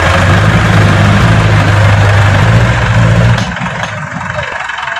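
Sonalika tractor's diesel engine running loud and steady under load as the tractor works its way out of deep mud. About three and a half seconds in, the engine sound drops away sharply.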